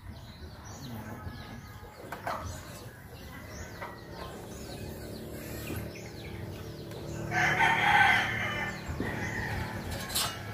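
A rooster crows once, loudly, starting about seven seconds in and lasting about a second and a half, over small birds chirping.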